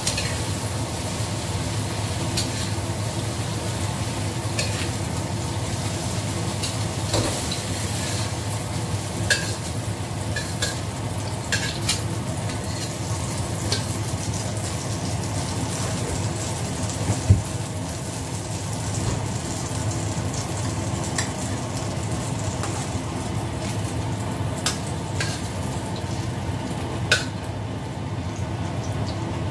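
Oil sizzling in a stainless steel wok, a steady hiss throughout, with occasional sharp clinks of a metal spatula against the pan.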